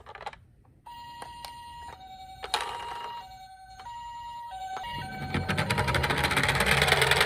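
Electronic sirens of toy ambulance minicars sounding the Japanese two-tone 'pipo-pipo', switching between a higher and a lower tone, with several sirens overlapping; they start about a second in. From about five seconds in, a rattling rumble builds and becomes the loudest sound.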